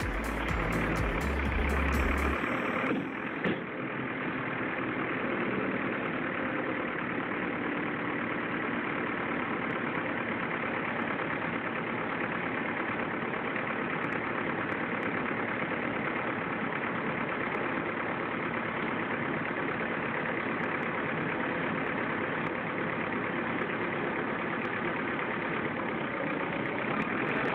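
A heavy machine's engine running steadily at an even speed, from about two seconds in.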